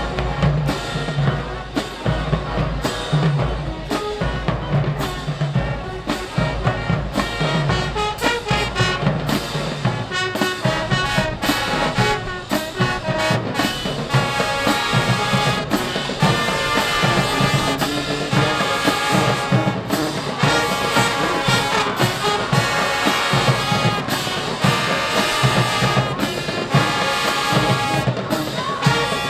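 High school marching show band playing live: drums and brass together, with the horns moving into long held chords from about halfway through.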